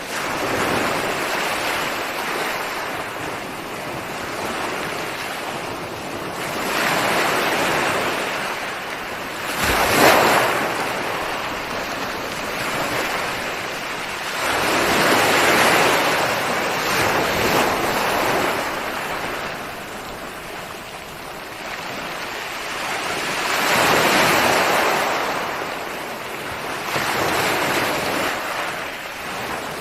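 Ocean surf: waves breaking and washing ashore, the rush swelling and ebbing every several seconds, with one sharper, louder break about ten seconds in.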